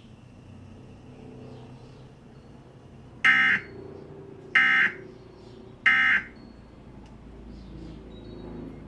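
Emergency Alert System end-of-message signal: three short bursts of SAME digital data tones, about 1.3 seconds apart, which mark the close of the alert.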